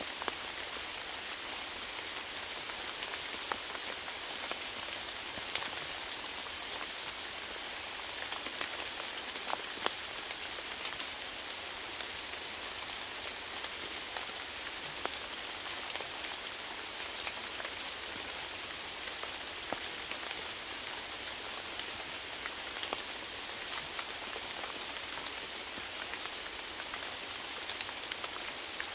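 Steady rainfall: an even hiss of rain with many distinct drops pattering on a surface.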